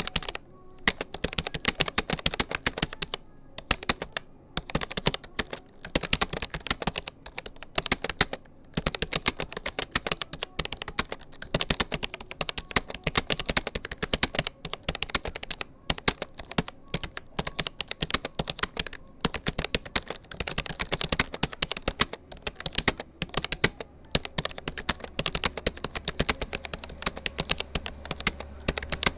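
Fast touch typing on a Rapoo computer keyboard: a rapid, continuous run of key clicks broken by a few brief pauses. A low hum comes in near the end.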